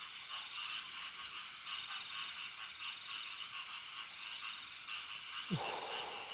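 A steady, pulsing night chorus of frogs and insects calling. About five and a half seconds in there is one brief, sudden sound that drops quickly in pitch.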